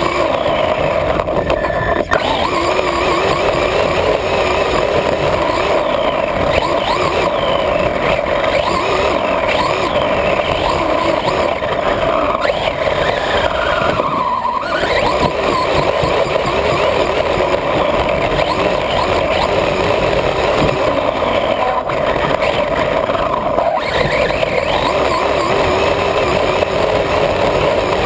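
Radio-controlled buggy's motor and drivetrain whining under throttle, the pitch rising and falling as it speeds up and slows.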